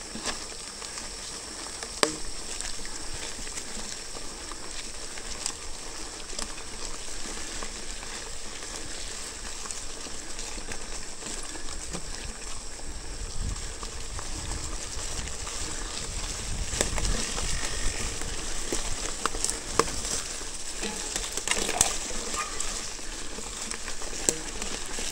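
Mountain bike rolling along a trail littered with dry leaves and twigs: a steady crackle from the tyres, with scattered sharp clicks and knocks, and a low rumble for a few seconds about halfway through.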